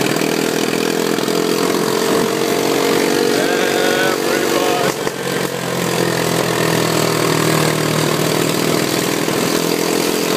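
ATV engine running under way, its note shifting lower about halfway through, over a steady rushing noise.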